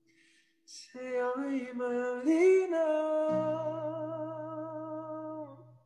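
A man singing a slow ballad line in Filipino, starting after a short breath and ending on a long held note. A low steady tone sounds underneath from about halfway, and the sound cuts off abruptly near the end.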